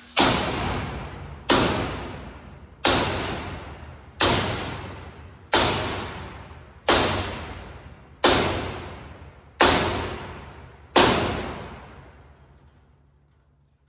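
Sledgehammer striking the torch-heated steel hinge of a roll-off dumpster tailgate, nine heavy blows about a second and a half apart, each ringing out. The blows are straightening a hinge of half-inch plate steel that was bent and has been heated to make it bend.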